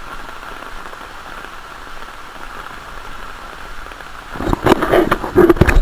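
Heavy rain falling in a steady hiss. About four seconds in, a run of loud, irregular thumps and knocks takes over.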